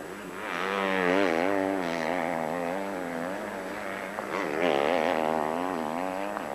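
Motocross bike engine revving hard, its pitch wavering quickly up and down as the throttle is worked. It swells about half a second in and surges again about four and a half seconds in.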